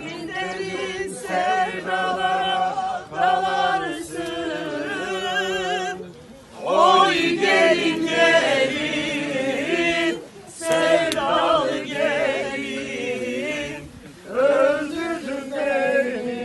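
A group of people singing a folk song together, unaccompanied, in long held notes with wavering vibrato. The phrases break off for a breath about six, ten and fourteen seconds in.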